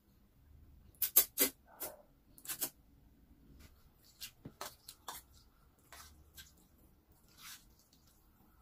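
Close-miked eating of creamy carbonara pasta: wet mouth clicks and smacks from chewing. They come as a quick run of sharp clicks, loudest about a second in, then fainter ones scattered through the rest.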